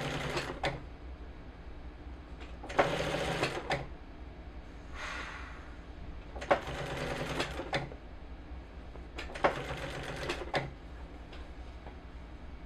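Sewing machine stitching in short runs of about a second each, stopping and starting again three or four times, while a zipper is sewn into a jacket.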